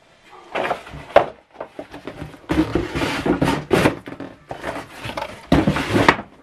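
Paper and cardboard packaging being handled: rustling, scraping and light knocks in three spells.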